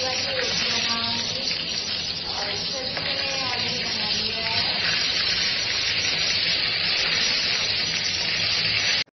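Pieces of food frying in hot oil in an iron kadhai, a steady loud sizzle as they are turned with a steel spatula. The sizzle cuts off suddenly at the end.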